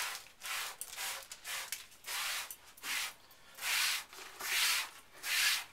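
Sponge scrubbing dry clay dust off a tabletop in a string of short, uneven back-and-forth strokes, a rough rub with each stroke about twice a second.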